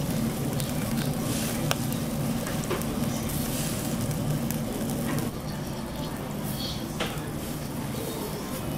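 Beef offal (horumon) and meat sizzling on a wire grill over a charcoal tabletop grill, the fat crackling and popping in many small sharp pops.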